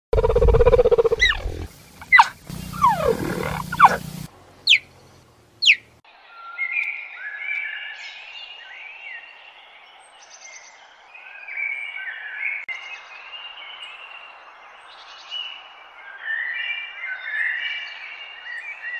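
A sequence of wild animal calls: a loud low call at the start, then calls that sweep up and down in pitch, two short high sweeps, and from about six seconds in a long run of repeated chirping calls.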